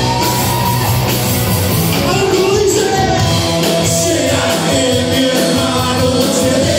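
Live rock band playing: electric guitars, bass guitar and drums, with a male lead singer singing over them.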